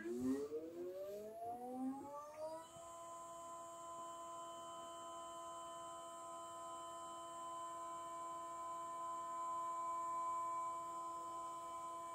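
Stepper motors of a GTD E.fric friction-drive telescope mount whining as it slews. The pitch rises over the first two and a half seconds as the motors speed up, then holds as a steady high tone while the mount moves at full slewing speed.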